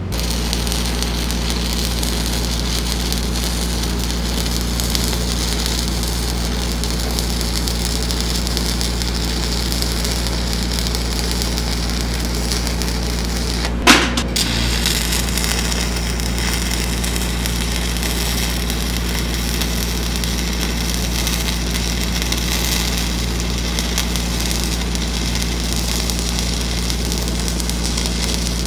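Stick welding arc crackling steadily as a downhill fill pass is run on steel pipe, with a steady low machine hum underneath. A single sharp pop stands out about halfway through.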